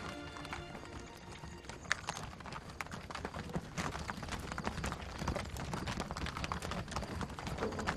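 Several horses walking over gravelly ground, their hooves clip-clopping in a dense, irregular, overlapping patter that sets in about two seconds in and grows louder. A held musical chord fades out in the first moment.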